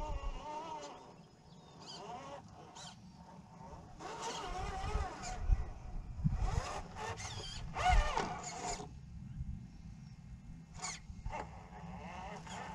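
Electric motor and gears of a radio-controlled scale truck whining, the pitch rising and falling as the throttle changes, loudest in the middle as it drives closer, over gusts of wind rumbling on the microphone.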